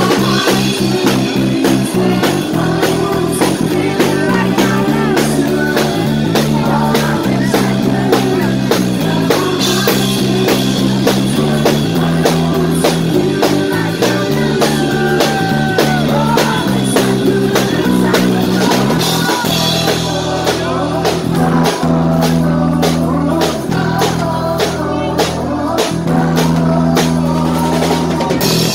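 Live pop-rock band playing loud and steady: a woman singing over a strummed acoustic guitar, with a drum kit keeping an even beat and a moving bass line.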